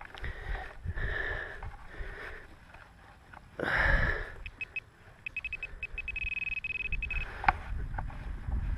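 Metal detecting pinpointer sounding as it is worked over a clod of earth. A few separate beeps about four and a half seconds in quicken into rapid pulsing and then a steady high tone for about two seconds, the sign that it has closed in on the metal target. A loud sniff comes just before the beeping.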